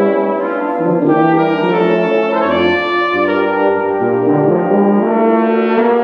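Tuba and euphonium ensemble playing held chords, the harmony shifting every second or so, with a deep tuba note coming in about two and a half seconds in.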